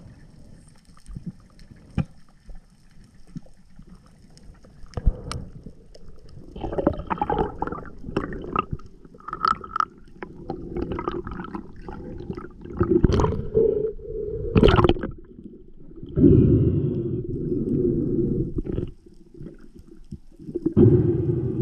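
Muffled underwater noise picked up by a camera in the water during a spearfishing dive: low rushing and gurgling of water with scattered sharp clicks and knocks, growing louder and busier about a quarter of the way in, with loud rushing stretches near the end.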